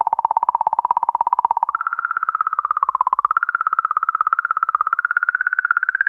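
Sonified 'song' of comet 67P/Churyumov–Gerasimenko: magnetic oscillations around the comet, recorded by ESA's Rosetta and converted into audio. It plays as a wavering electronic tone with a rapid fluttering pulse, jumping up in pitch about two seconds in and creeping higher toward the end.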